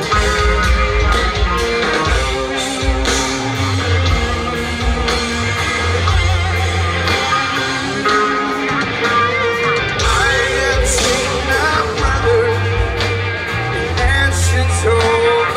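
Live rock band playing: electric guitars, bass and a drum kit, with a singer's voice.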